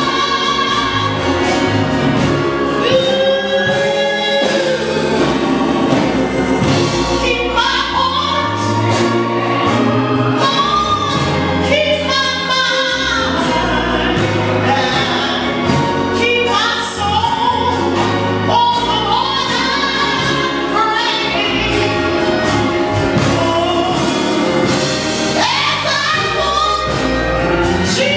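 Gospel choir singing, led by a woman soloist at a microphone, over a steady bass line.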